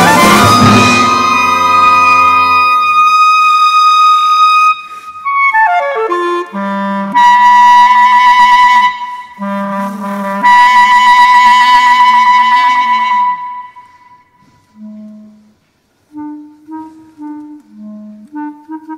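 Solo clarinet in an orchestral clarinet concerto. A full orchestral chord dies away in the first few seconds, and the clarinet holds a high note, plunges in a fast downward run and plays loud sustained notes. After a brief near-silent pause near the end it plays short, quiet, separate notes.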